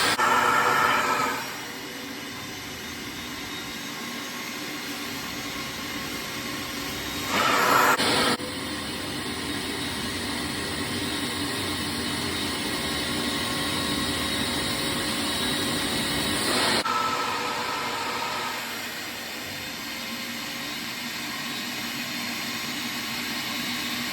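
Stanley wet/dry vac running steadily with an upholstery extraction head, sucking water out of the fabric. Three times the steady motor sound briefly gets louder with a higher whistle as the airflow through the nozzle changes: about a second in, near the middle and about two-thirds through.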